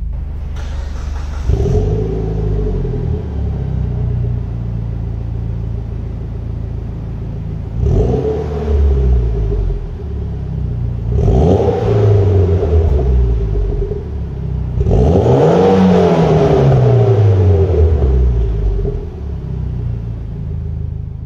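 Mitsubishi Lancer Evolution X's turbocharged 2.0 L 4B11 four-cylinder, breathing through a Cobb 3-inch catback exhaust and high-flow cat, idling and free-revved in place four times, each rev falling back to idle. The last rev is the longest and highest.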